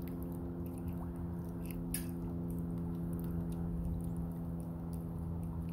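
A steady low mechanical hum with an even pitch, with scattered faint clicks and a sharper click about two seconds in.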